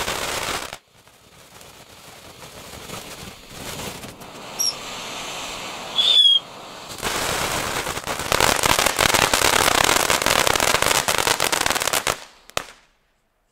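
Weco Monsterfontäne fountain battery burning: a steady spray hiss thick with fine crackling. It is loud for the first moment, drops to a quieter hiss, then comes back loud with dense crackling from about seven seconds in and cuts off suddenly near twelve seconds. A brief high, falling whistle sounds about six seconds in.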